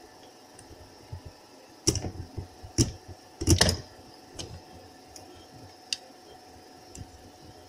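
Toy vehicles being handled on a workbench: a diecast tow truck and a plastic toy dump truck give a few sharp clicks and knocks, the loudest a quick cluster about three and a half seconds in, over a faint steady hum.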